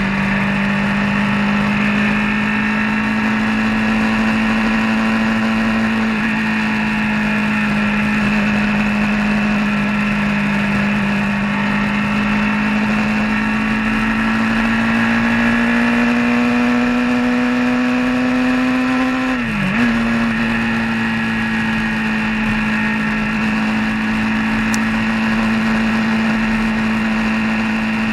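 Vehicle engine running steadily on the road. Its pitch climbs slowly, drops sharply for a moment about two-thirds of the way through, then holds steady again.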